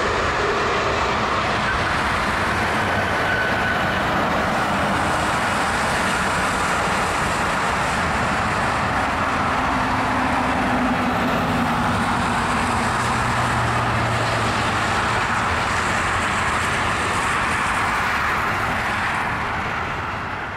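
Boeing 767 airliner's jet engines making a loud, steady rushing noise as it touches down and rolls out along the runway, easing off slightly near the end.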